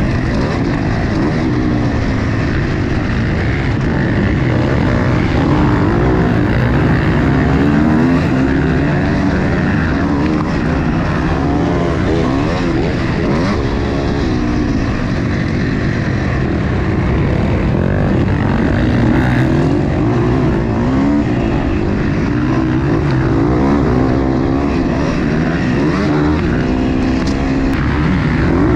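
Motocross bike engine under race load, revving up and down again and again as the rider opens and closes the throttle and shifts through the gears, heard close up from on the bike.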